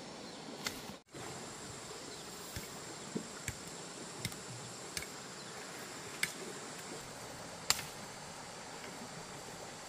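Insects shrilling steadily in one high tone, with scattered sharp clicks or taps about once a second. The sound cuts out for an instant about a second in.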